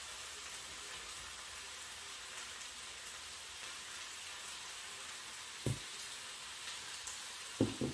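Spinach sautéing in garlic-infused olive oil in a skillet, a steady sizzle. A knock sounds a little past the middle and two quick knocks come near the end.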